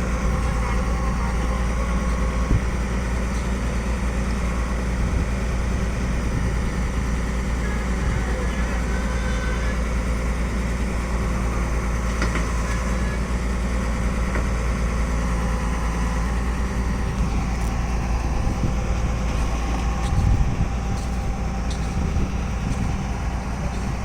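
Tata Hitachi crawler excavator's diesel engine running steadily as the machine works its way up onto a trailer, with a brief knock about twenty seconds in.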